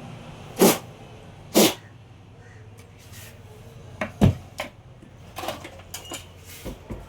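Hard objects knocked and set down on a workbench during laptop repair: two sharp knocks in the first two seconds, a heavier thump about four seconds in, then a run of lighter clicks.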